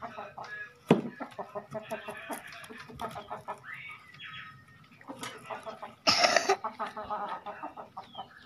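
A large kitchen knife slicing and scraping into a mackerel tuna's head on a wooden chopping block, with a sharp knock about a second in and a louder scrape about six seconds in. Short clucking calls sound throughout in the background.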